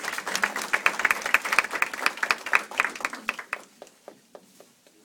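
Audience applauding: dense, irregular hand-clapping that thins to a few scattered claps about three and a half seconds in, then stops.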